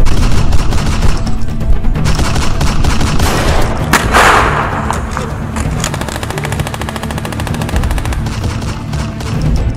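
Battle gunfire: automatic and rifle fire in bursts, with one louder report trailing off about four seconds in, then a long fast run of automatic fire.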